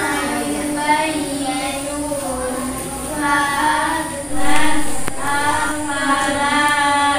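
A child's voice singing in long, wavering held notes, the melodic line swelling louder about four seconds in.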